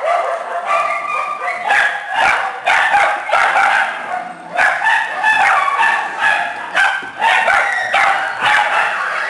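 A pack of small dogs and puppies barking and yipping together, many voices overlapping in a continuous excited chorus.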